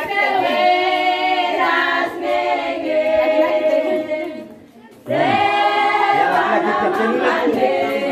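A choir singing a cappella, with long held notes; the singing breaks off for a moment about halfway and then starts again.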